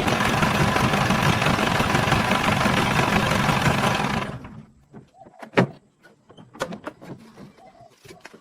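A car engine running, then dying away about four seconds in. A few sharp clicks and clinks follow, one much louder than the rest.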